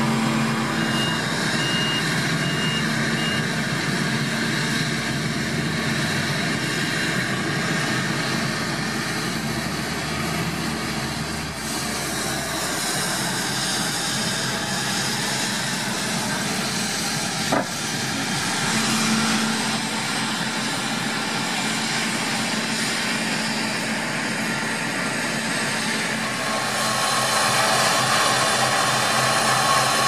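Diesel engines of a Claas Lexion combine harvester and a Terberg 10x4 grain truck running steadily, with a few short reversing beeps near the start.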